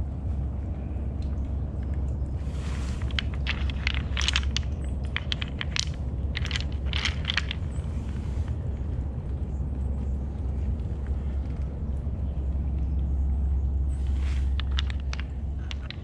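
Creek stones and gravel crunching and clicking in a spell of about six seconds starting a few seconds in, and again briefly near the end, over a steady low rumble on a body-worn action camera's microphone.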